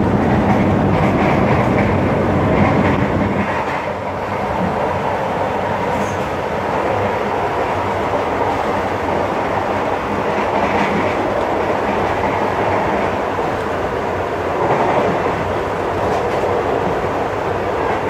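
KRL electric commuter train running, heard from inside the carriage: a steady rumble of wheels on rails. The low rumble is heavier at first and eases a little about three and a half seconds in.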